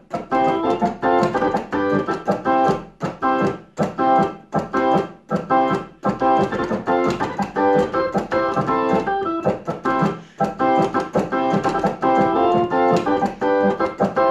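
Electric organ playing a ska rhythm in short, choppy chords, with small variations and bits of melody worked in.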